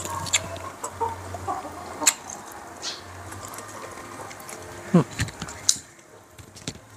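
Hard king crab shell being snipped and cracked by hand and with kitchen scissors, giving scattered sharp snaps and clicks, the loudest about five seconds in. Chickens cluck in the background.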